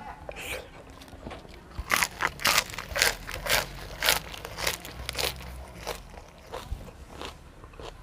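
Crunchy chewing close to the mouth as raw seafood and fresh vegetables are eaten: a fast run of loud crunches for a few seconds, then slower, softer chewing.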